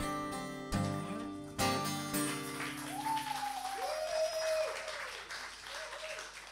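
Two acoustic guitars strum the last chords of a song, which ring out and fade. From about three seconds in an audience applauds, with a couple of long drawn-out calls over the clapping.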